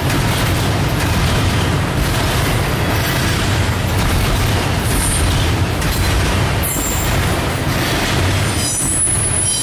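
Double-stack container cars of a freight train rolling past with a steady heavy rumble on the rails. Brief high-pitched wheel squeals come about five seconds in and again near the end.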